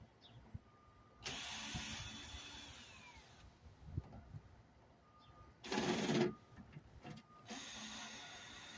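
Power drill running in three spells during the teardown of a microwave. The first run winds down with a falling whine, the second is a short, louder burst, and the third starts near the end.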